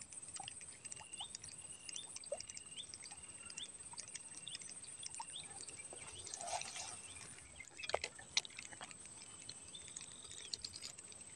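A small bird calling with short, repeated upward-flicking chirps, about one and a half a second, over a faint steady high-pitched whine. A few soft clicks and a brief rustle come in around the middle, with two sharper clicks a little after.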